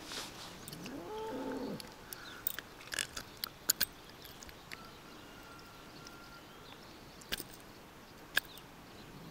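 A few sharp, separate clicks from hands working a lure and hook in a small pike's mouth, which is hard to free by hand. About a second in comes a short rising call.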